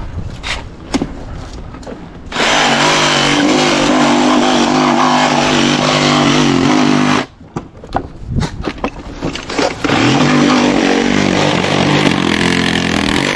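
Power saw cutting panels in two long passes. It runs steadily for about five seconds, stops, then cuts again for the last three and a half seconds.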